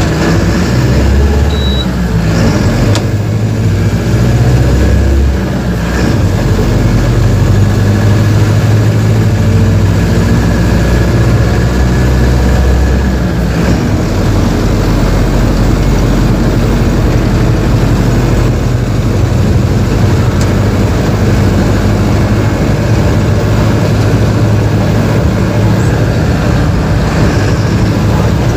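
Mercedes-Benz OF-1721 BlueTec 5 bus diesel engine running. Its note changes about five seconds in and again about halfway through.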